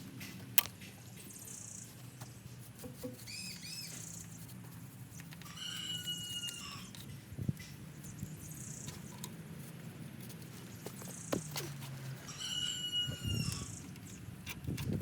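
A bird calling a few times, each call a short clear note under a second long, over a low steady hum and a few light clicks.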